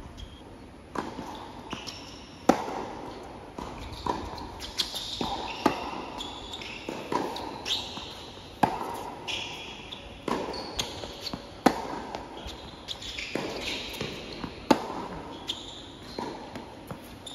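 Tennis rally on a hard court: sharp pops of a tennis ball struck by rackets and bouncing, coming every second or so, with short high squeaks from shoes on the court between the shots.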